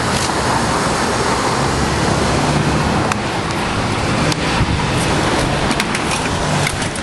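Loud, steady rush of outdoor city noise, like road traffic, with a few short clicks through it.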